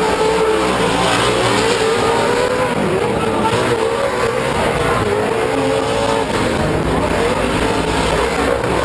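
Several Pro2 short-course off-road race trucks with V8 engines racing at once, their engines revving and their pitch rising and falling as they accelerate and lift.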